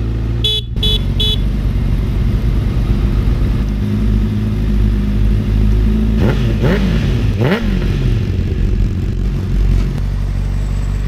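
2016 Honda CBR1000RR's inline-four idling through a Yoshimura carbon-fibre slip-on exhaust. The horn gives three quick toots about half a second in. Later the throttle is blipped twice, about six and seven and a half seconds in, the revs rising and falling back to idle each time.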